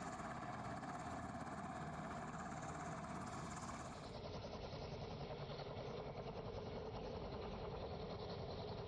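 Military helicopter running on the ground: a steady engine and rotor drone with a constant pitched hum. The hum drops a little in pitch about four seconds in.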